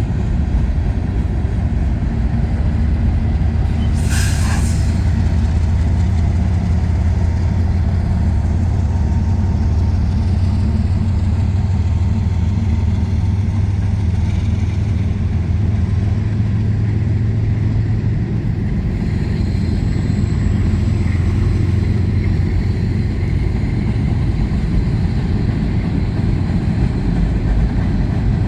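Long freight train rolling past: a steady, loud low rumble of wheels on rails from the passing railcars, with a short burst of noise about four seconds in.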